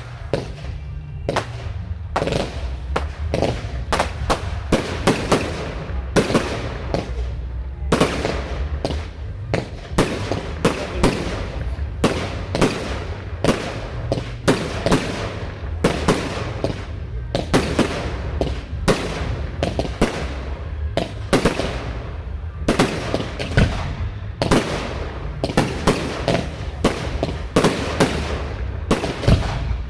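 Fireworks display: a dense, unbroken string of shell bursts and crackling bangs, several a second, with music playing underneath.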